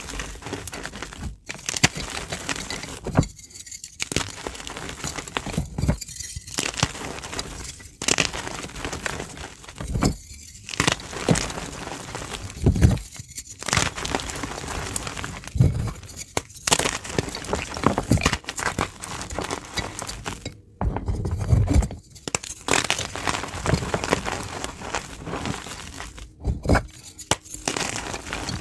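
Pieces of reformed gym chalk crunching and crumbling as they are squeezed and crushed in bare hands, with a crackle of breaking chunks and falling powder. It comes in repeated squeezes with short pauses every two to three seconds.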